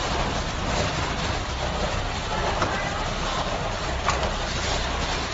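Heavy hailstorm: a dense, steady roar of hailstones pelting the ground, trees and parked vehicles in strong wind, with a few sharper single hits, the clearest about four seconds in.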